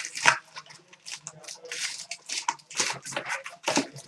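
Trading-card packs and their wrappers being torn and handled: a quick run of short crinkling, rustling bursts.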